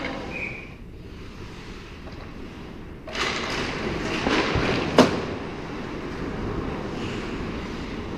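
Ice hockey skates scraping and carving on the ice, starting up about three seconds in, with one sharp crack of a stick or puck about five seconds in.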